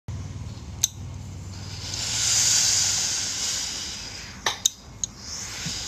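Silver Star ES-94A industrial steam iron, fed from a hanging water bottle, letting out a burst of steam. The hiss swells about a second and a half in and dies away by about four seconds, with a few sharp clicks before and after it over a low steady hum.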